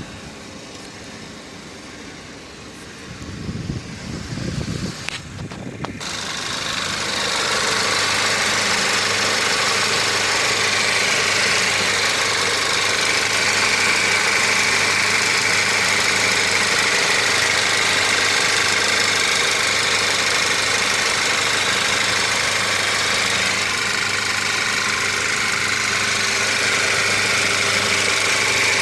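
Volkswagen Group 1.8 TSI turbocharged four-cylinder petrol engine idling while still cold. It is muffled for the first few seconds, with some thumps, then becomes much louder and steady about six seconds in, as it is heard from outside the car.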